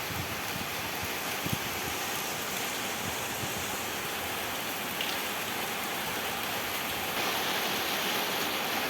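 Steady rain with small hailstones falling on a roof, a dense, even hiss with a few faint knocks, growing a little louder about seven seconds in.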